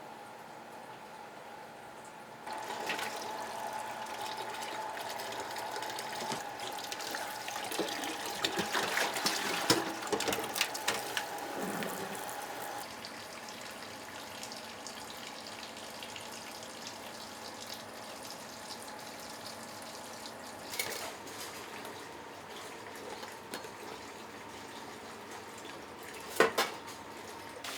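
Water running from a kitchen tap, starting a few seconds in and easing off about halfway, with clattering of kitchen utensils and a couple of short knocks later on.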